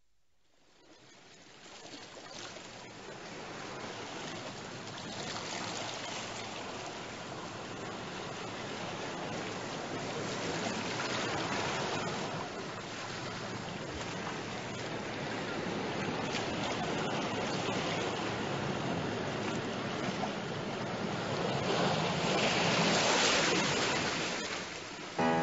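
Steady rushing sound of waves. It fades in over the first few seconds and swells to its loudest near the end.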